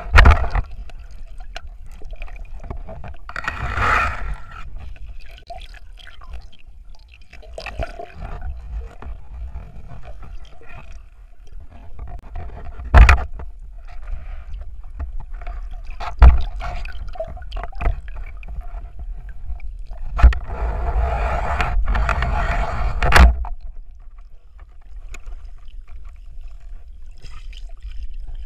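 Muffled underwater sound picked up through a waterproof camera housing: gurgling and scraping as the diver handles the fish and gear, with a faint steady hum underneath. Several sharp knocks against the housing, the loudest about halfway through.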